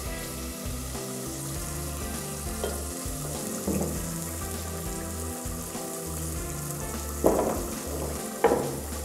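Spice masala sizzling in oil in a clay pot as it is sautéed down, stirred with a wooden spoon. There are a few sudden knocks of the spoon against the pot, the loudest two near the end.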